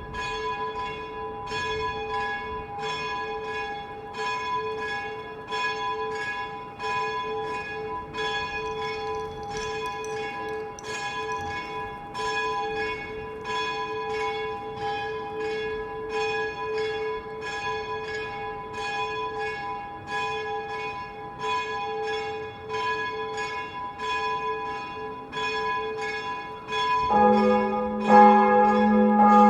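Church bells ringing, with strikes following each other rapidly and evenly and each note ringing on into the next. Near the end a louder, deeper bell joins in.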